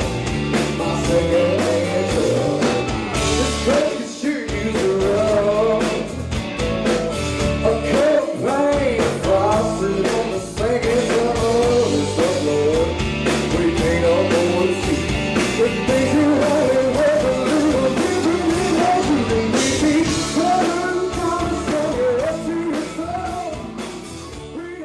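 Live rock band playing a song: a male lead vocal over strummed acoustic guitar, electric guitars, electric bass and a drum kit. The music fades down near the end.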